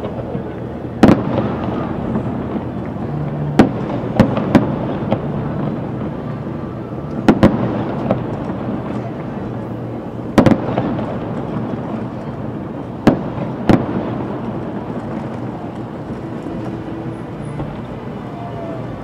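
Aerial firework shells bursting in a fireworks display: sharp bangs every second or few, about nine of them, some in quick pairs, over a steady background of noise.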